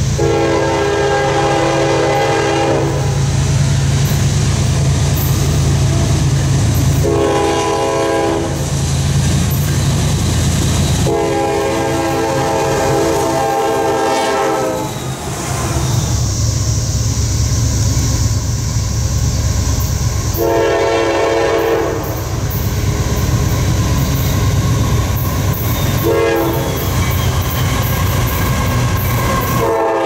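Diesel freight locomotive air horn sounding a series of blasts: long ones near the start, about 7 s in and about 11 s in, then more about 20 s and 26 s in, and another starting right at the end. Under the horn the locomotive's engine and the passing freight cars rumble steadily.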